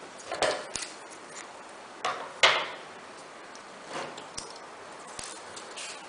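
Blackout fabric rustling and crinkling as the pieces are handled and pinned on a tabletop, with a few light taps and clicks. The loudest rustle comes a little over two seconds in.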